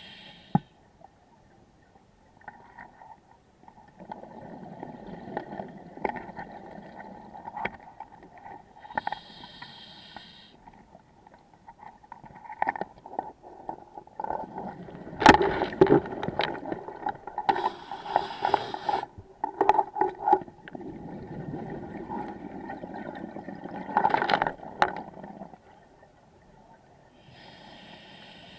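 Scuba diver breathing underwater through a regulator: hissing inhales through the demand valve alternating with the rumbling gurgle of exhaled bubbles, several breath cycles in turn.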